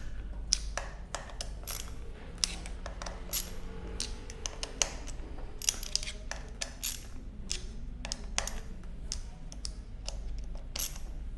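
Irregular sharp clicks and light taps of small metal tools and parts being handled on a workbench, a few a second, over a low steady hum.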